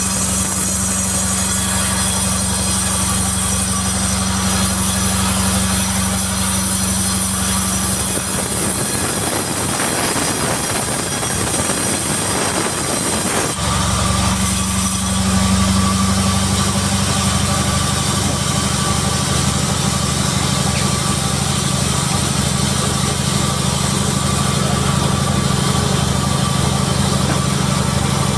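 Sawmill machinery running with a steady engine hum. From about eight seconds in the hum gives way to a rougher, noisier sound, and about five seconds later the steady hum comes back abruptly.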